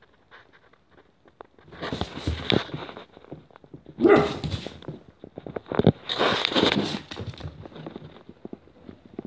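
Beagle puppy barking at her own reflection in a mirror, in three loud bouts about two seconds apart. In between, claws click and skitter on a wooden floor.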